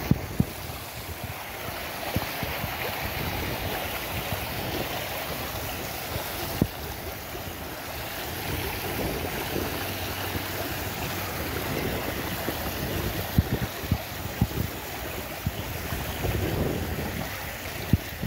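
Wind buffeting the microphone over the steady splash of a fountain's water spilling over the rim of its pool, with a few brief knocks now and then.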